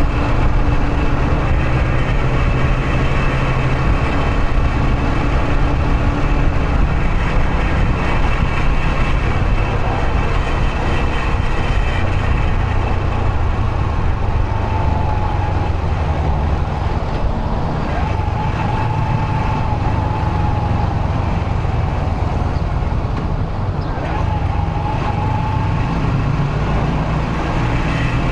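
Yamaha YBR125 motorcycle's single-cylinder 125 cc four-stroke engine running steadily while riding, with road and traffic noise around it.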